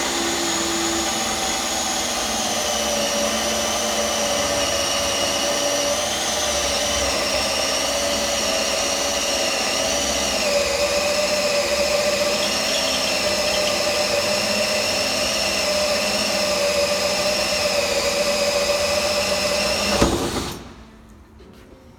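Power drill driving a hole saw through a door to bore a lock hole. The motor whine runs steadily for about twenty seconds, sagging slightly in pitch under the cutting load, then stops suddenly near the end.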